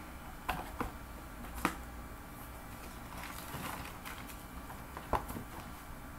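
Quiet room tone with a low steady hum and a few faint, short clicks, two of them close together near the end.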